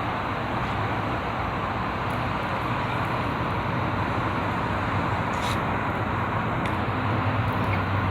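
Steady hum of road traffic from a nearby highway.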